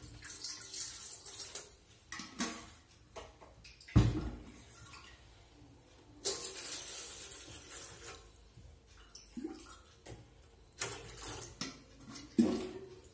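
Water being poured from a stainless-steel pot for sugar syrup, in two hissy stretches, between knocks and clanks of steel vessels being handled and set down, the loudest a thump about four seconds in.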